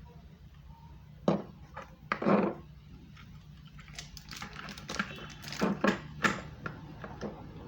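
Irregular knocks and clatters of tools and parts being handled on a work surface: two sharp knocks near the start, then a quick run of clicks and knocks in the second half.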